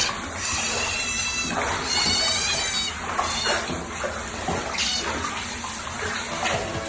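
An animal's high-pitched calls: two drawn-out ones in the first three seconds, then shorter, fainter ones, over a steady hiss.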